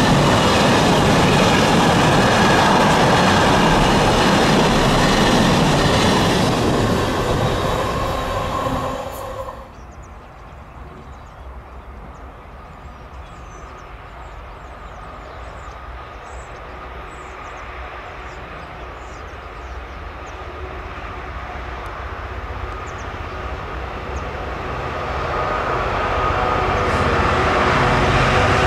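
A Class 66-hauled freight train passing at speed, its wagons rumbling and clattering along the track. The noise cuts off sharply about nine seconds in. A quieter stretch follows, and then the rumble of an approaching train builds towards the end.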